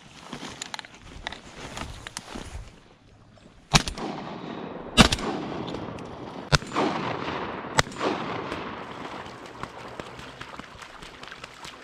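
Four shotgun shots fired at ducks over about four seconds, the second the loudest, each trailing off in a fading echo.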